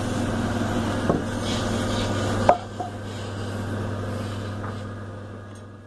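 Wood lathe running with a steady hum, with a sharp knock about two and a half seconds in; after it the sound drops and fades away.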